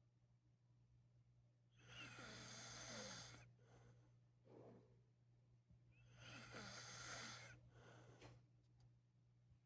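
A man snoring faintly in his sleep: two long, noisy snoring breaths about four seconds apart, with a short softer breath between them, over a steady low hum.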